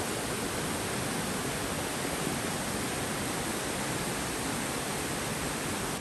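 Small rocky woodland stream rushing over little cascades: a steady, even rush of water.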